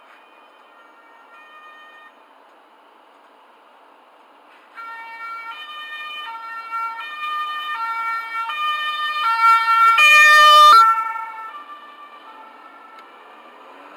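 German police car's two-tone siren (Martinshorn) switching back and forth between two pitches about every three-quarters of a second. It is faint at first, turns loud about five seconds in and is loudest around ten seconds as the car goes by, then fades as it pulls away.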